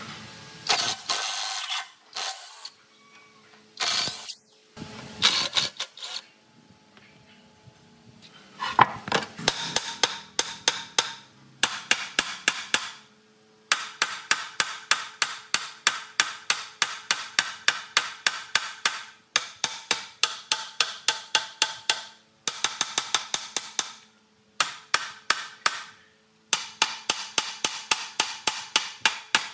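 A hammer striking metal in steady runs of about three or four blows a second, with short pauses between the runs and a ringing tone after each strike, typical of knocking loose a rusted part. A few short, noisy rasps come in the first several seconds.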